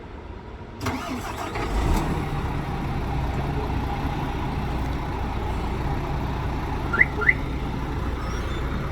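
A MAN truck's diesel engine is started remotely by a smartphone-controlled starter alarm. It begins to crank about a second in, catches a second later and settles into a steady idle. Two short rising chirps come near the end.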